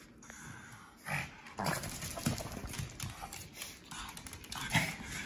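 A Shih Tzu–Pekingese mix dog playing in a blanket and moving on a hardwood floor: a run of irregular short snuffling and scuffling sounds starting about a second in.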